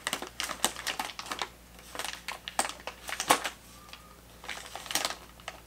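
Stiff Lavazza coffee bag crinkling and crackling in quick, irregular clicks as it is handled and cut open at the top.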